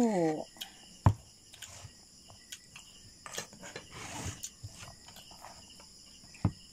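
Crickets chirping steadily in the background while a fork taps and clinks against a plate during a meal of chicken and rice. A sharp click about a second in is the loudest sound, and a voice gives a short falling hum at the very start.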